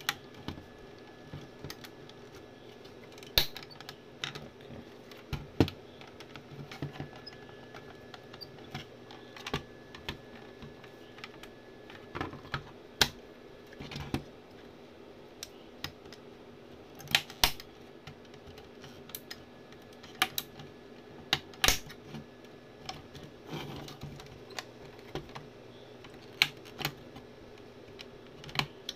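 Irregular clicks and taps of the plastic casing and knobs of an M-Audio Fast Track Pro audio interface being handled and set down on a workbench during disassembly, over a steady low hum.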